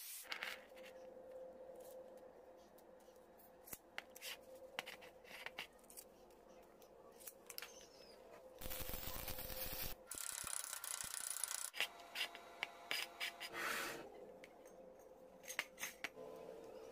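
Short steel pipe pieces being handled and set down on a steel block: scattered light metallic taps, clicks and scrapes, with a short rushing noise about nine seconds in.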